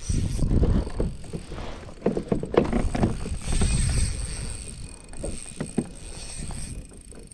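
Spinning reel being wound in against a hooked fish, its handle turning with a low mechanical rumble, with a few light knocks along the way.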